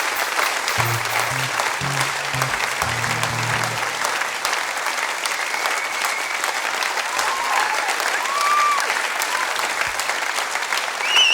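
Audience applauding and cheering, with a few whoops and whistles. A few low instrument notes sound in the first few seconds.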